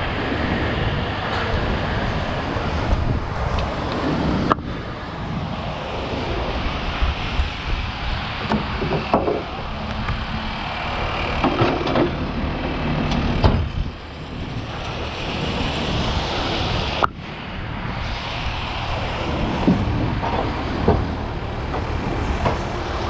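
Steady vehicle and traffic noise with wind buffeting the microphone, changing abruptly a few times.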